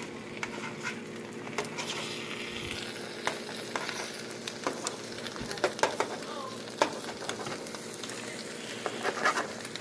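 Beaten eggs for an omelet sizzling in a frying pan, with scattered clicks and scrapes of a spatula pressing down the egg bubbles.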